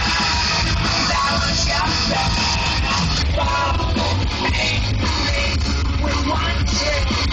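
Loud rock music: a singing voice over guitar and a steady, heavy bass.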